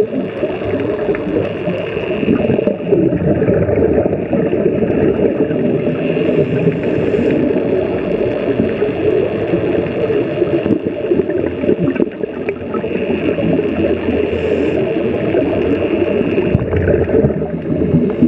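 Underwater sound of a scuba diver's breathing through a regulator: a steady low rumbling and gurgling of exhaled bubbles, with a brief hiss a few times.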